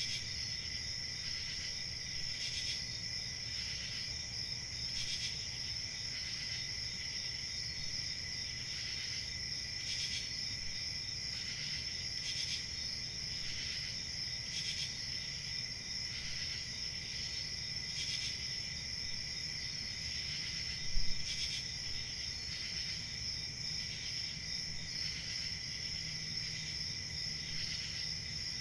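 Crickets chirping in a steady, continuous high-pitched chorus that swells a little every two to three seconds. A brief low thump sounds about three-quarters of the way through, louder than the chorus.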